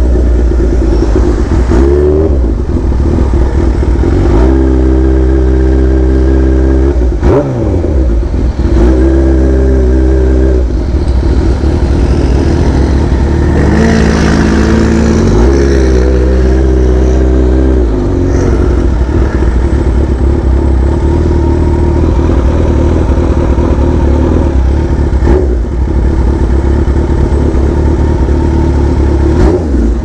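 Kawasaki Ninja H2's supercharged inline-four motorcycle engine, run loud. It is revved up and held at steady revs several times, dropping back between, with a few short sharp cracks along the way.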